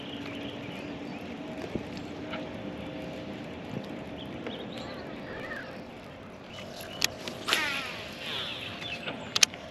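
Steady hum of a bass boat's electric trolling motor. About three-quarters through, a baitcasting reel whirs briefly, followed by a few sharp clicks near the end.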